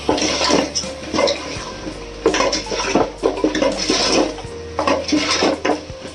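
A metal spoon stirring and scraping mutton pieces in a cooking pot, with a run of irregular clinks and scrapes against the pot.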